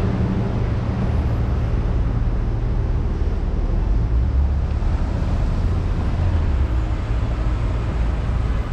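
City street traffic noise: a steady hum of cars and other motor vehicles running on the road.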